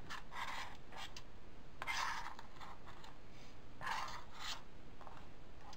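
Kitchen knife blade scraping sliced leeks across a plastic cutting board in several short strokes, gathering them up.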